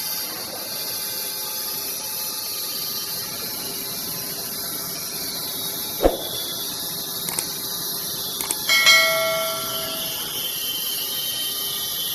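Wood-Mizer band sawmill machinery running with a steady hiss and high whine. A sharp knock comes about six seconds in, and a louder metallic clang near nine seconds rings on for about a second.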